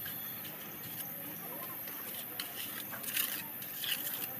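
Steel mason's trowel scraping and patting wet cement mortar on top of a brick wall, with a cluster of short, sharp scrapes and taps in the second half over a steady hiss.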